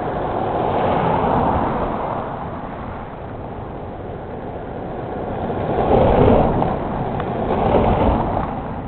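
Cars driving past over a milled, grooved road surface: tyre and engine noise swelling and fading as each vehicle passes, loudest about six seconds in.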